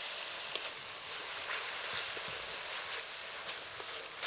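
Wet ground spice paste sizzling in hot oil in an aluminium kadai, a steady hiss, with a few light scrapes of a metal spatula stirring it.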